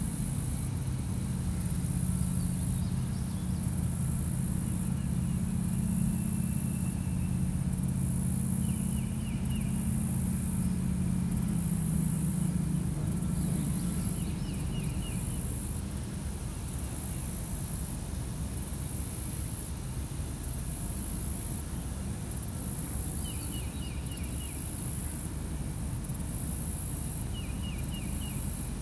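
Swamp ambience: a high insect buzz that swells and fades in pulses, a bird repeating a short call of a few quick notes several times, and the low hum of a distant engine that fades out about halfway through.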